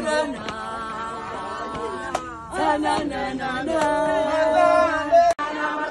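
A group of women singing and chanting together unaccompanied, with long held notes; the singing breaks off for an instant near the end.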